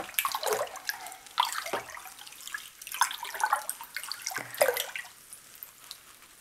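A spoon stirring a tub of dye bath: irregular sloshing and dripping water with small splashes, dying down about five seconds in as the spoon is lifted out.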